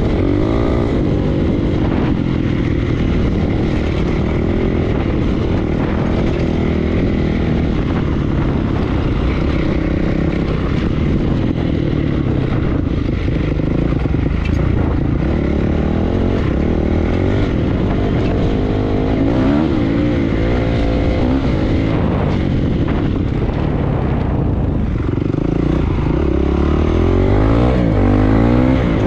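Honda CRF four-stroke single-cylinder dirt bike engine running under way, its pitch rising and falling as the throttle is worked. It revs up harder near the end, with wind noise over the ride.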